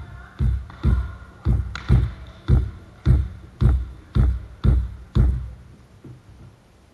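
Volleyball bounced over and over on a wooden sports-hall floor in a pre-serve routine, about two bounces a second, ten in all, each thud ringing briefly in the hall. The bouncing stops about five seconds in, as the server readies to serve.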